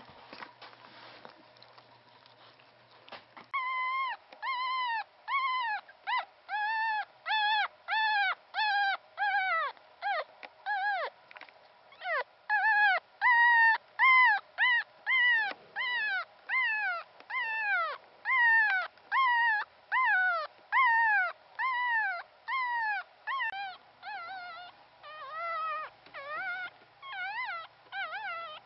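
A newborn Pomeranian-cross puppy crying: a long run of high-pitched squeals that starts a few seconds in, about two a second, each rising and then falling in pitch.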